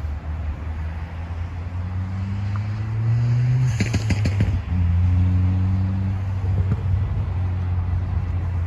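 Engine hum that slowly rises in pitch for about three seconds, then drops back to a lower pitch and holds steady, as when a vehicle accelerates and shifts. A brief rush of wind on the microphone comes about halfway through.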